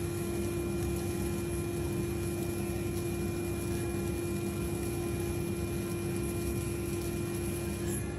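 Electric sausage stuffer running with a steady hum as it pushes meat through the stuffing tube into the casing.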